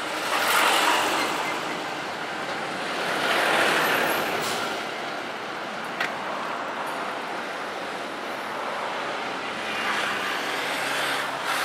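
Road traffic passing close by: cars and a truck go past in swells of tyre and engine noise, loudest near the start, about three seconds in and again about ten seconds in. A brief sharp click comes about six seconds in.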